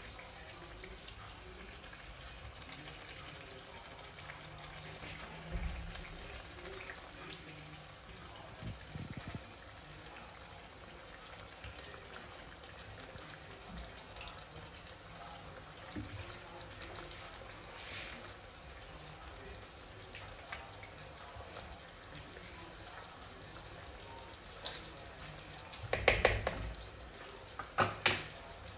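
Mustard-sauce fish curry simmering softly in a frying pan while pieces of fried branzino are laid into the sauce. A few louder knocks and clatters come near the end.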